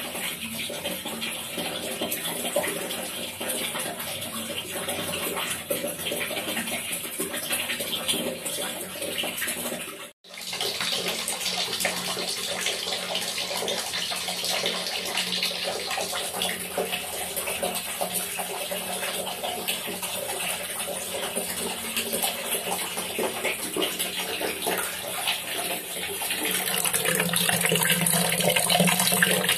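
A stream of water pouring into a plastic bucket, a steady splashing and gurgling. It breaks off for an instant about ten seconds in, and grows louder near the end.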